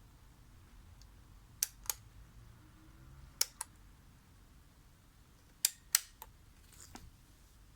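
Sharp clicks from items being handled, in three close pairs a couple of seconds apart, with a faint rustle near the end.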